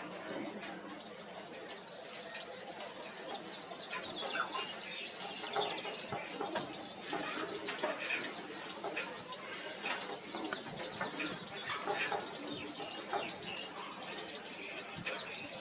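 Wild birds chirping and calling in many short notes, over a faint steady high insect drone.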